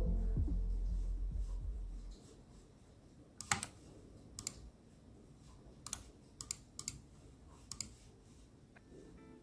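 Logitech G305 wireless gaming mouse buttons clicked in a sound test: sharp, separate clicks spaced irregularly, some in quick pairs.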